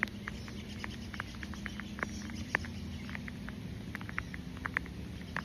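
Rain falling, with raindrops ticking irregularly on a nearby surface, a few sharp taps a second over a steady low rush.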